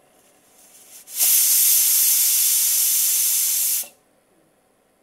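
Mini pressure cooker venting steam: a faint hiss builds, then a loud, high hiss of steam lasts about two and a half seconds and stops abruptly. The release is the sign that the cooker has reached its working pressure.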